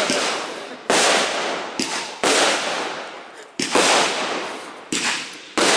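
Aerial fireworks shells bursting one after another: about six sharp bangs, roughly a second apart, each followed by a hissing tail that fades away.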